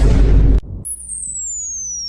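Edited-in sound effects: a loud half-second blast of noise, then, about a second in, a high whistle that starts and glides slowly downward in pitch, like a falling-bomb whistle.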